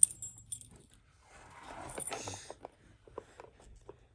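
Small toy key and lock clicking and rattling as the key is handled and fitted into a toy door lock, with a sharp metallic click at the start and scattered lighter clicks after it.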